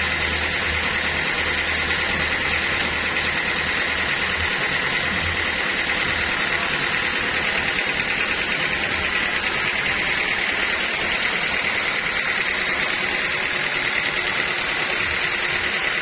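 Homemade band sawmill running steadily with a high, even whine from the spinning blade, not cutting into the wood. A low hum underneath drops out about four seconds in.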